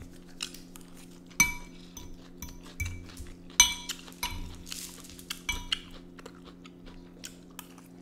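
Metal forks clinking and scraping against ceramic plates and a bowl while eating: scattered sharp clinks, each with a brief ring, the loudest about one and a half and three and a half seconds in. A steady low hum runs underneath.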